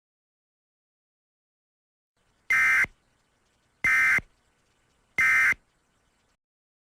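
Three short, loud Emergency Alert System (SAME) digital data bursts, each about a third of a second long and about a second apart, with a raspy two-tone screech. Bursts this short after a finished warning are the end-of-message signal that closes the EAS alert.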